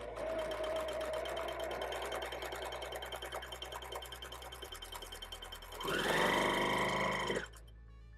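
Janome HD9 straight-stitch sewing machine stitching through taffeta, its needle mechanism clattering in a fast, even rhythm for about four and a half seconds. After a brief pause it gives a louder, higher whirring run of about a second and a half near the end, then stops.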